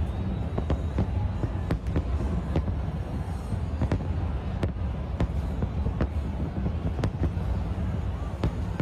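Fireworks going off: many sharp bangs at uneven intervals, several a second at times, over a continuous low rumble of further bursts.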